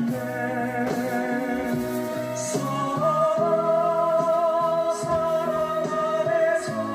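Music: a slow song sung over instrumental accompaniment, with one long note held with vibrato from about three seconds in until near the end.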